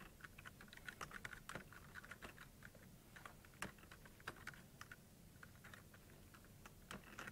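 Faint typing on a computer keyboard: irregular key clicks in short runs.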